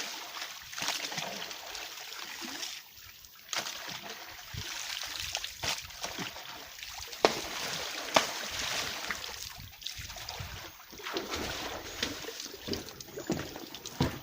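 Water splashing and sloshing around laundry being washed by hand without a machine, with two sharp knocks about seven and eight seconds in.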